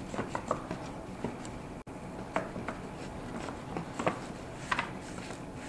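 Irregular small clicks and taps of hands and tools on the hard plastic parts of a Stihl MS271 chainsaw's handle and fuel-tank housing as it is being taken apart, over a steady low background.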